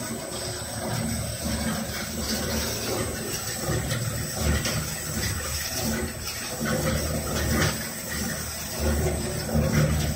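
Electric onion slicing machine running: a steady rushing mechanical noise with a few faint clicks as it cuts onions into rings.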